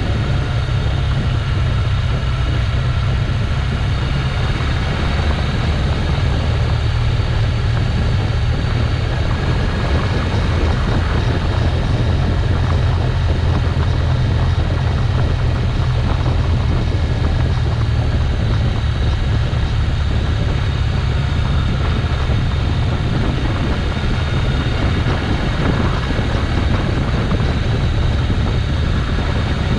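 Motorcycle on the move, engine running steadily under heavy wind rumble on the microphone.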